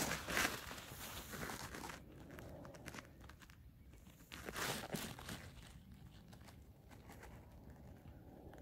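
Intermittent soft crunching and scuffing on coarse shell-grit sand close to the microphone, louder in the first couple of seconds and again briefly about halfway through.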